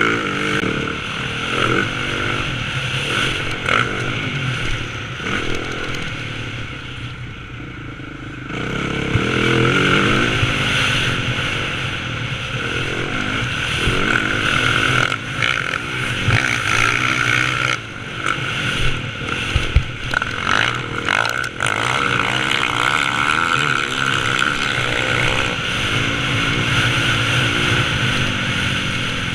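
Dirt bike engine heard on board from a helmet camera on a motocross track, revving up and dropping back again and again through the corners and straights. About a quarter of the way in the throttle eases off for a couple of seconds, then the bike pulls hard again.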